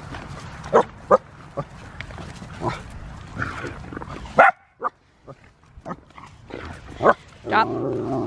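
A dog vocalising in play: a string of short barks and grunting growls in brief separate bursts, with a short break about halfway.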